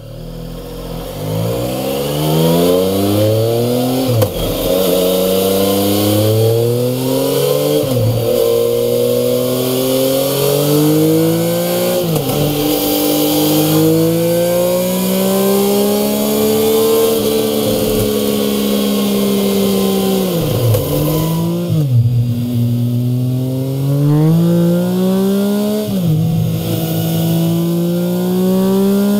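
Triumph Speed Triple 1050 cc inline-triple engine accelerating hard through the gears on a dyno. The pitch rises steadily in each gear and drops sharply at each gear change. It is heard first through the stock silencers, then through MIVV Suono high-mount slip-on silencers.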